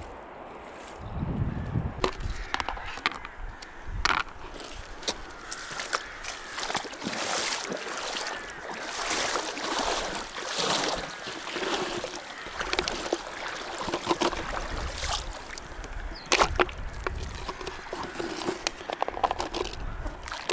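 Shallow water sloshing and splashing around wading legs, with the rattle of loose corn scooped from a plastic tub with a cut-off plastic bottle and tossed into the water as groundbait. Wind buffets the microphone for the first two seconds.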